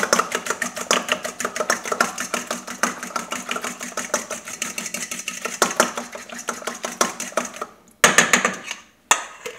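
A metal fork beating eggs in a stainless steel bowl: rapid, even clicking of the fork against the bowl at about eight strokes a second. The beating stops near the end, and two short, louder clatters follow.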